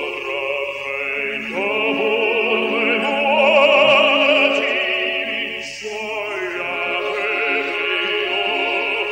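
Operatic singing with orchestral accompaniment: long held notes sung with a wide vibrato.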